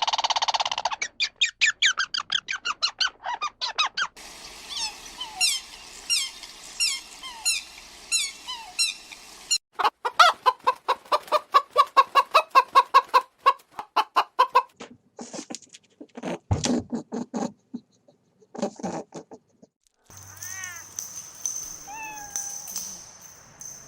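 A sequence of separate recordings of bird or fowl calls with cuts between them: rapid repeated high calls, then a fast even run of short calls, then scattered single calls. A steady high whistle-like tone runs under the last part.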